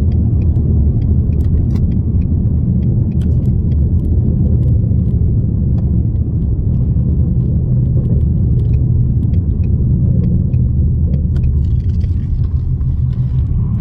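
2019 Ford Mustang driving, a steady low rumble of engine and road noise.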